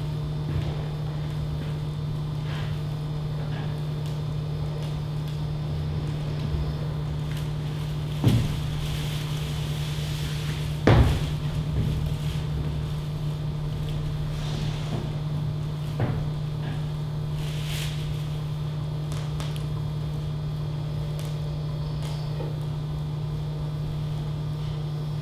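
A steady low hum with a few sharp knocks, the loudest about eleven seconds in.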